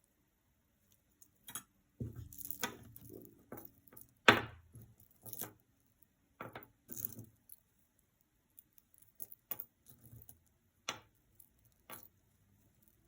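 Metal costume jewelry clinking and jangling as pieces are picked through by hand, in scattered light clicks and short rattles, with a sharper clink about four seconds in.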